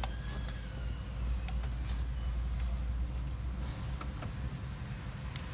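Light clicks and scrapes of fingers pulling the old rubber plenum gasket out of the lower intake manifold of a Chrysler 2.7 V6, a stubborn gasket, over a steady low background hum.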